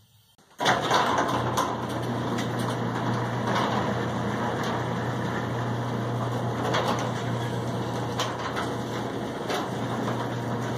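Electric garage door opener running as an overhead sectional garage door rolls open: a steady motor hum with rattling and light clicks from the door. It starts suddenly about half a second in and stops abruptly.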